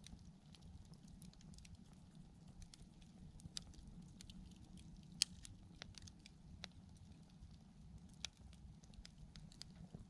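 Wood campfire crackling faintly: irregular sharp pops and ticks over a steady low rumble of the flames, with a louder pop about five seconds in and another about eight seconds in.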